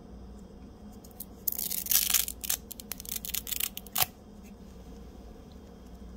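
Packaging being handled: about two and a half seconds of crinkling and tearing that starts about one and a half seconds in and ends with a sharp click.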